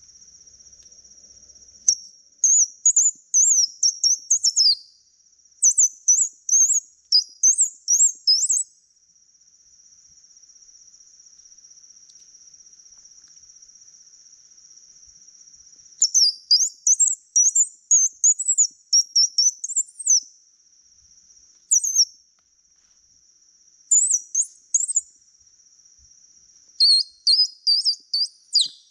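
A bird singing in phrases of rapid high chirps, a few seconds each with pauses between, over a steady high-pitched insect drone.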